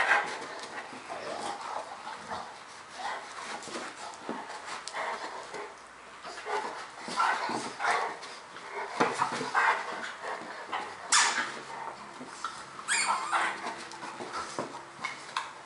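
A Rhodesian Ridgeback and a Dogo Argentino puppy playing, making repeated short, irregular dog vocal sounds. A sharper, louder sound comes about 11 seconds in and another about 13 seconds in.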